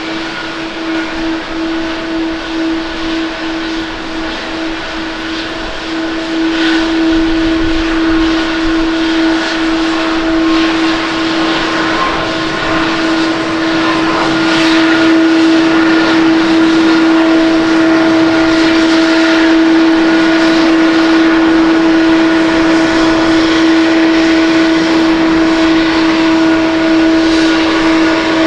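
Boeing 737-800's CFM56-7B turbofan engines at takeoff power through the takeoff roll, lift-off and climb-out: a loud steady jet rush with a strong, even-pitched engine tone. It grows louder about six seconds in and again around fifteen seconds in.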